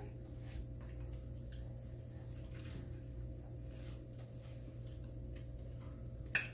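Quiet eating at a table: faint ticks of forks on plates and chewing over a steady low hum, with one sharp click of cutlery near the end.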